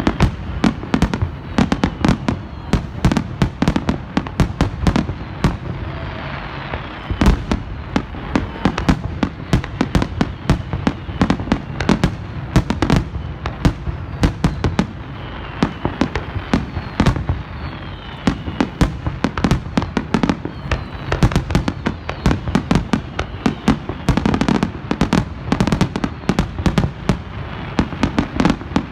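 Fireworks display: a dense, continuous barrage of shell bursts and crackling reports, many bangs each second with no pause.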